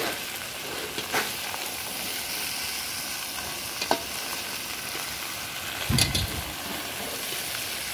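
Potato wedges and tomatoes in spiced oil sizzling in a large metal kadai, while a metal spatula stirs and scrapes them and clacks against the pan a few times. The heaviest knock comes about six seconds in.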